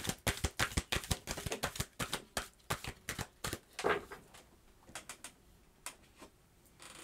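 A deck of tarot cards being shuffled by hand: rapid crisp clicks of cards slapping together for about three and a half seconds, then only a few scattered taps and rustles.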